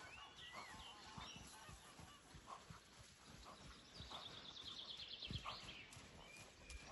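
Faint, soft hoofbeats of a Gypsy cob trotting on arena sand, with small birds chirping and a fast bird trill about four seconds in.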